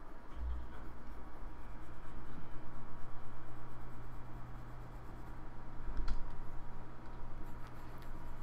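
Computer mouse sliding in slow scraping strokes over a steady low hum, with a dull thump about half a second in and a thump with a sharp click about six seconds in.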